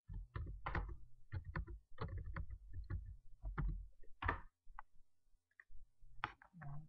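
Computer keyboard keystrokes and mouse clicks, an irregular run of short clicky taps.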